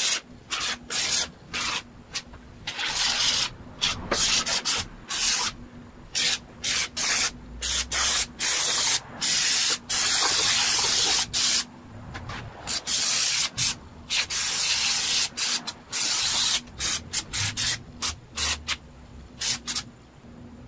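Aerosol can of spray foam hissing in many short bursts as the foam is squirted out, with one longer spray of about three seconds near the middle.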